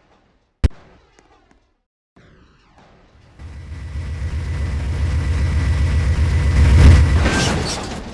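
A sharp click about half a second in, then a loud low rumble that builds from about three seconds in, peaks near seven seconds and eases off, with a thin steady high tone through it, as of a train passing close.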